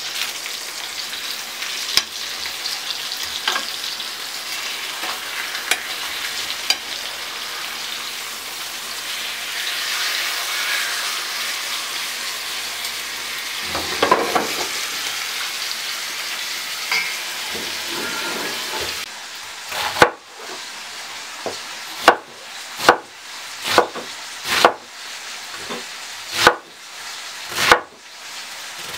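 Rib-eye steaks sizzling as they fry in a pan, with a few clinks of a fork and spoon on the pan. About two-thirds of the way through this gives way to a knife cutting cabbage on a wooden board, about one cut a second.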